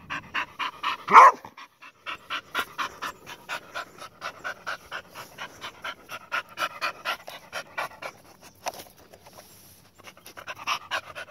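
Dog panting hard and fast close up, about four breaths a second, with a brief pause near the end. About a second in, one short, loud, pitched cry rises and falls.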